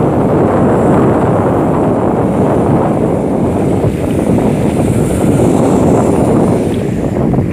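Strong wind buffeting the microphone: a loud, steady rush with no clear tone, easing briefly just after the end.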